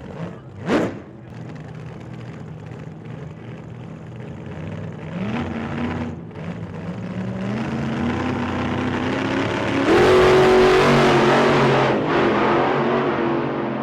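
A vehicle engine revving, its pitch rising in steps and loudest about ten seconds in, after a brief sweep about a second in.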